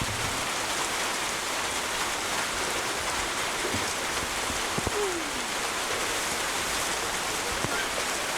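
Heavy rain falling steadily, an even hiss of rain without a break.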